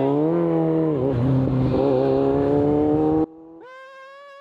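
Motor vehicle engine revving loudly for about three seconds, its pitch wavering and dipping, then cutting off abruptly to a much fainter steady tone near the end.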